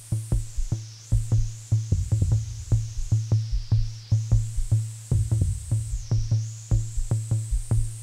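Live electronic beat played on a modular synthesizer: short clicky percussion hits, built from sampled sports sounds, about four a second over a steady synth bass. A high hiss sweeps down in pitch and back up twice.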